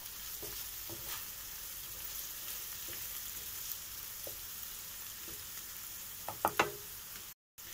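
Chopped onion and grated carrot sizzling steadily in oil in a skillet, stirred with a wooden spatula that scrapes and taps against the pan, with a few sharper taps near the end.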